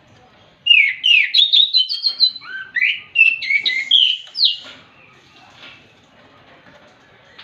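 Orange-headed thrush singing in full song: one loud phrase of rapid, varied whistled notes and slides lasting about four seconds, starting just under a second in.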